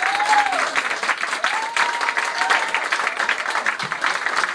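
Audience applause at the end of a poem: steady clapping, with two short whoops near the start and about a second and a half in.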